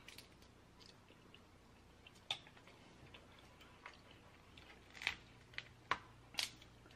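Snow crab leg shells clicking and cracking faintly as they are handled and broken apart by hand: a few scattered sharp clicks, most of them in the last two seconds.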